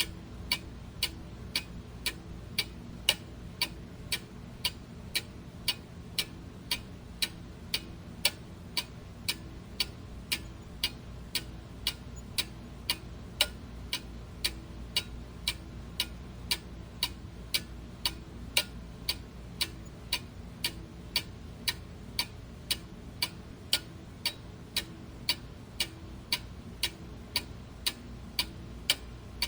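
Clock ticking steadily, about two sharp ticks a second, over a faint low background hum.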